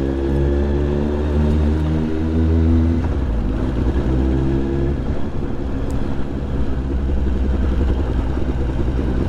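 Kawasaki ZXR motorcycle's inline-four engine running under way, at a fairly steady pitch. The note shifts and drops back about three seconds in, then picks up again a second or two later.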